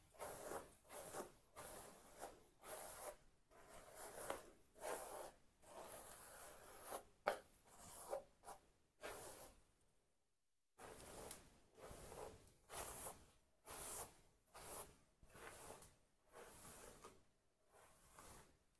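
A hairbrush drawn through damp, towel-dried hair in quick repeated strokes, a soft rasping rub with each stroke, as the hair is detangled. The brushing stops briefly about ten seconds in.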